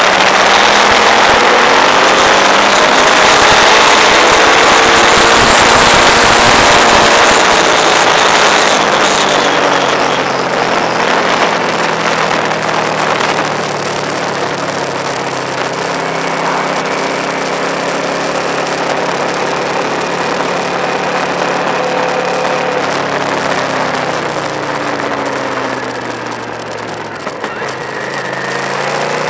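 Motorcycle engine running at road speed, its note rising and falling with the throttle, under heavy wind rush on the microphone that is loudest for the first several seconds. Near the end the engine note drops as the bike slows into a bend, then climbs again.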